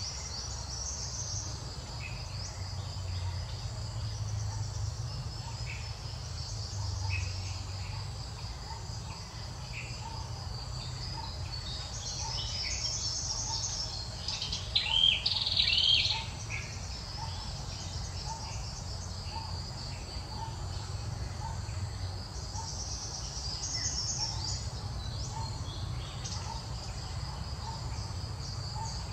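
Steady chorus of insects chirping high and continuously, with a soft short chirp repeating about once a second. About halfway through, a louder, high-pitched gliding call cuts in for a second or two.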